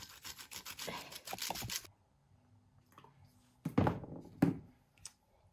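A handheld zester grating a lemon's peel in quick, rapid scraping strokes, stopping about two seconds in. Nearly two seconds later come a couple of short, dull thumps as a hand works into the flour in a plastic bowl.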